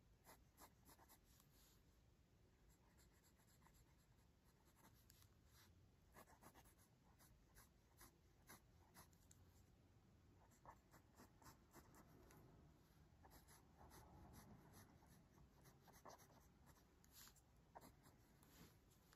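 Faint mechanical pencil lead scratching on paper in many short, quick sketching strokes, irregular in rhythm.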